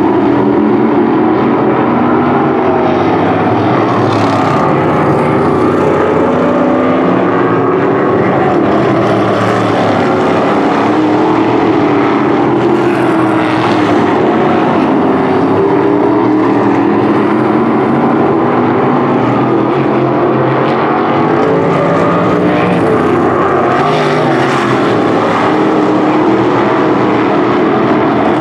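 Winged sprint car engines running on an asphalt oval. Several engine notes rise and fall in pitch as the cars circle, at a steady, loud level.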